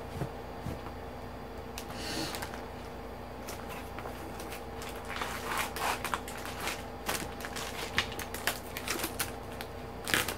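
A cardboard box being opened and its contents handled: a rustle, then a quick scatter of light clicks, taps and crinkles, busiest in the second half.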